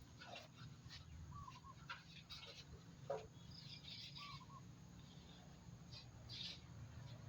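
Near silence, with a few faint bird chirps over a low, steady background hum.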